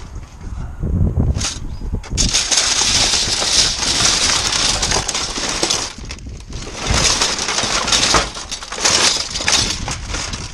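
Clear plastic bags and packaging crinkling and rustling as gloved hands rummage through them in a metal bin, with a short lull about six seconds in.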